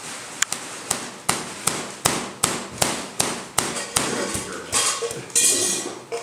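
Three-phase Tesla coil firing sparks: sharp snaps at about three a second, then a longer crackling hiss of discharge near the end.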